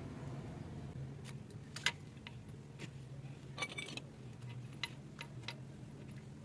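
Scattered light metallic clicks and taps of tools and parts being handled while a new cam chain tensioner rod and spring are fitted into a Honda CD70 engine, over a low steady hum.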